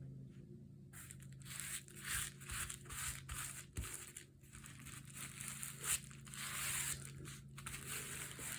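Crinkling and rustling of a squishy notebook cover made from a recycled Amazon mailer envelope, handled and pressed down by hand as fabric is glued onto it. It comes in irregular quick bursts, starting about a second in.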